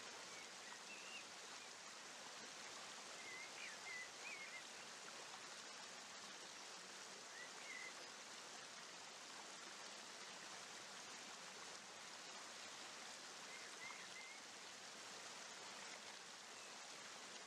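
Faint steady wash of small waves lapping on a rocky lakeshore, with a few faint, short bird chirps now and then.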